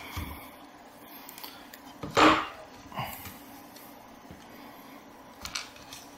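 Small hand tools being handled on a wooden workbench: one short knock about two seconds in, as of red-handled wire cutters set down on the board, with a few faint clicks and taps later.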